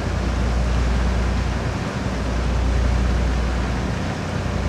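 Motor boat's engines running steadily under way: an even low drone with a steady rush of wind and water noise over it.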